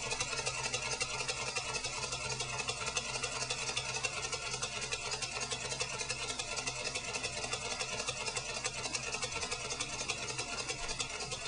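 Model beam engine running steadily on compressed air, giving a fast, even ticking from its air exhaust and moving parts.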